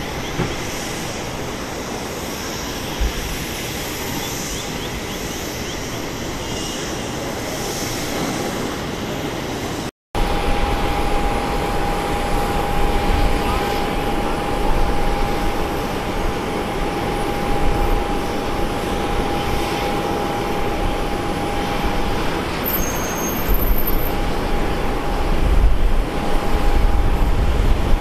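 Jet aircraft engine noise: a steady rush with a thin, steady whine. There is a brief break about a third of the way in, and a deepening rumble near the end.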